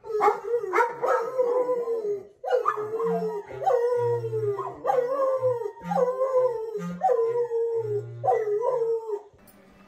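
Dogs howling along to a saxophone: long wavering howls throughout, with the saxophone playing short, low held notes underneath. The howling stops about half a second before the end.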